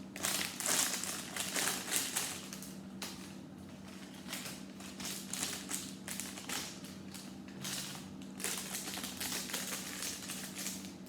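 Plastic Lego parts bags crinkling and rustling in irregular bursts as they are handled and searched through, with light clicks of loose pieces.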